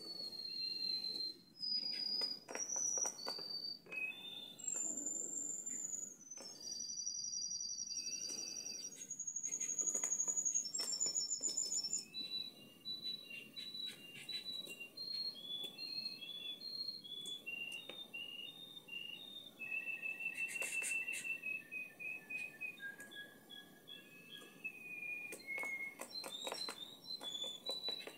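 Domestic canary singing: long whistled notes held at one pitch and then stepping to another, giving way after the first dozen seconds to strings of short repeated notes. Brief splashes of water are heard now and then as the canary bathes.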